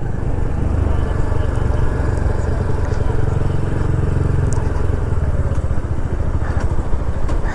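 Motorcycle engine running steadily while under way, a low, even engine note throughout.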